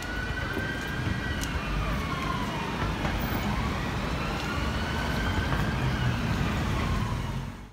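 An emergency-vehicle siren wailing, its pitch sliding slowly down and up every few seconds, over the steady rumble of road traffic.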